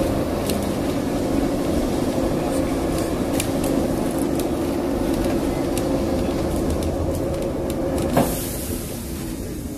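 Traditional Lisbon tram running on street track, heard from on board: a steady motor hum over a low rumble, with scattered clicks and knocks from the wheels on the rails. About eight seconds in there is a sharp knock and a brief hiss, and the running sound then drops away.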